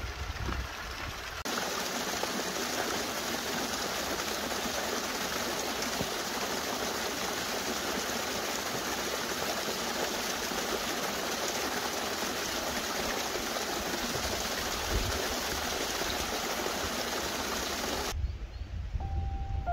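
Small moorland waterfall pouring into a stream: a steady rush of falling water, close up. It starts abruptly about a second and a half in and stops near the end, with low wind rumble on the microphone before and after.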